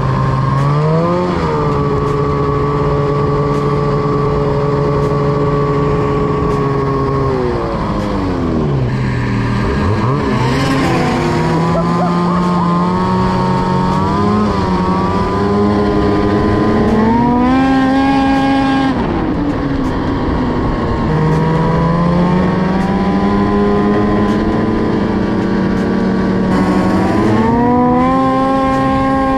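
Snowmobile engine running under way at trail speed. Its pitch holds steady for a few seconds at a time, then drops as the throttle is eased and climbs again as it is reopened, several times over, with a steady rush of wind and track noise underneath.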